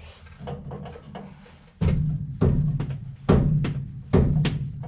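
Four hollow thumps on a truck's metal fuel tank, each ringing on with a low drum-like tone, preceded by a few lighter knocks. The tank is being knocked to judge by ear how much fuel is left, and it hardly sounds empty.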